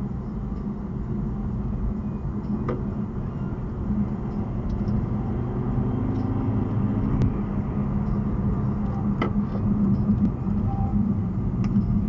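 Car driving, heard from inside the cabin: steady low engine and tyre rumble with a hum, growing a little louder, with a few faint clicks.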